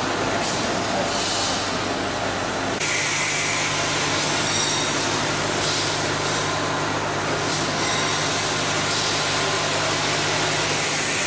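Automatic food packaging machine running: a steady mechanical clatter with short hisses recurring every one to two seconds. A steady low hum sets in about three seconds in.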